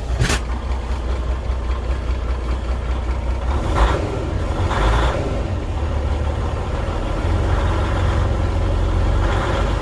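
Semi truck's diesel engine idling, heard from inside the cab as a steady low rumble, with a sharp click just after the start and two brief knocks around four and five seconds in. The owner is listening for a shake or change in engine sound that could be due to bad injectors.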